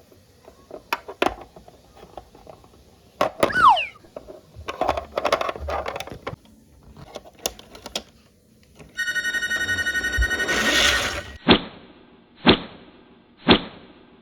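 Wooden toy train pieces clicking and knocking, with a short squeal; about nine seconds in, a battery toy's electronic ringing tone sounds for about two seconds, followed by three sharp electronic strikes about a second apart.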